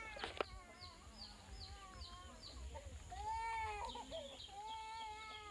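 Village yard animals: a bird gives a quick run of about five short, falling chirps, then an animal makes two drawn-out calls that rise and fall. A single sharp knock comes just before the chirps.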